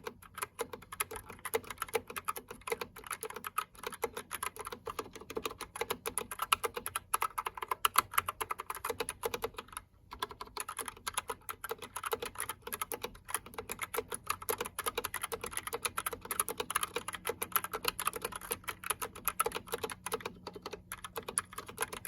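Typing on a GK61 60% mechanical keyboard with Gateron Brown tactile switches: a fast, continuous clatter of keystrokes, with a brief pause about ten seconds in.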